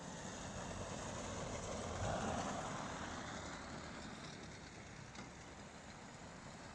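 Electric quad bike driving past on packed snow: a rush of tyre and motor noise that swells to its loudest about two seconds in, then fades.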